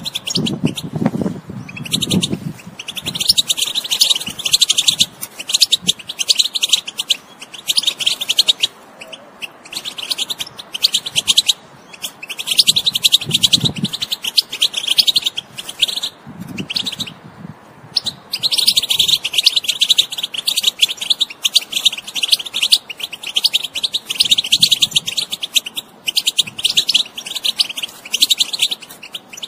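European goldfinch singing: a fast, dense twittering song in phrases of a few seconds broken by short pauses, with one long unbroken phrase in the second half.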